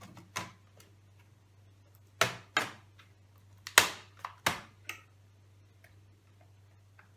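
Sharp plastic-and-metal clicks from a laptop RAM module being pressed down into its slot until the retaining clips snap shut, about seven clicks with the loudest just after two seconds and near four seconds in.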